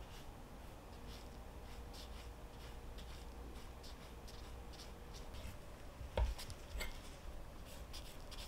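Kitchen knife cutting raw pork loin on a wooden cutting board: faint slicing and light taps of the blade on the board, about twice a second, with one louder knock on the board about six seconds in.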